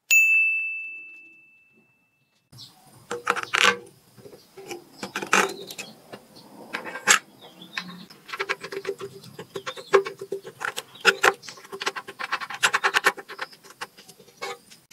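A single bright ding that rings out and fades over about two seconds. Then hands work flap discs onto a steel bolt: irregular clinks and rattles of the metal washer and hex nut, with the scrape of the abrasive flaps.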